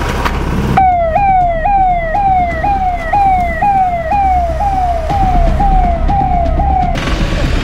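Police vehicle's electronic siren, starting about a second in: a pitched tone that jumps up sharply and glides down again, about twice a second, over a low rumble. It cuts off near the end.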